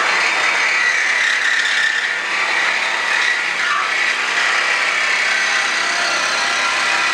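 Handheld electric power saw running steadily under load as its blade cuts through a steel exhaust pipe.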